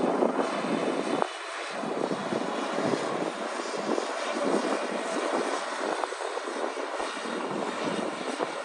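Combine harvester running steadily: an even mechanical drone with a faint high whine over it.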